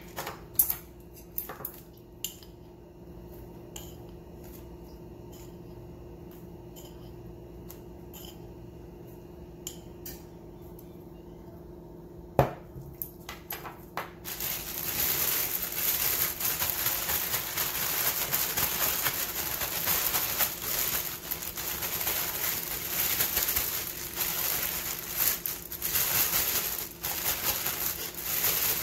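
A few clicks and knocks from a glass jar as flour is poured over squid rings in a plastic bag. Then, about halfway in, a loud, continuous rustle of the thin plastic bag being handled and shaken to coat the squid in flour.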